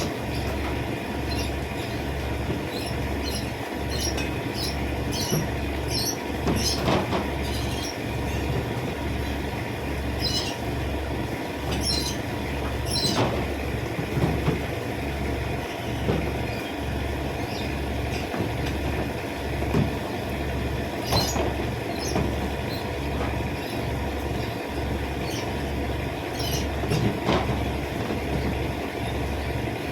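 A machine running with a regular low pulse about once a second, with short high-pitched squeaks scattered over it.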